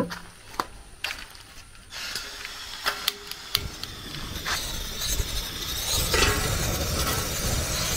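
An aluminium cooking pot knocks and clanks against the metal pot stand of a gas cylinder-top burner, with a few sharp clicks around the middle. From about two seconds in, a steady rushing hiss builds and is the loudest sound through the second half.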